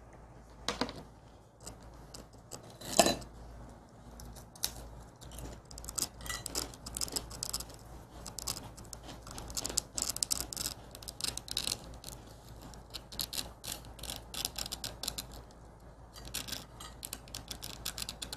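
A thin pick scratching and tapping at a dalgona sugar candy to cut out its shape: small, quick clicks and scrapes, sparse at first and coming thick and fast from about six seconds in, with one sharper click about three seconds in.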